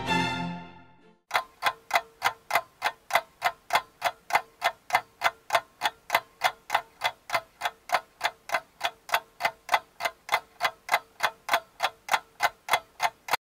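Clock ticking steadily, about three to four ticks a second, after background music fades out in the first second; the ticking stops just before the end.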